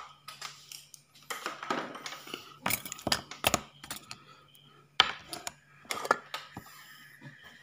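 Loose transistors and small metal parts clattering in a clear plastic parts box as a hand rummages through them: several bursts of clicks and rattles, over a steady low hum.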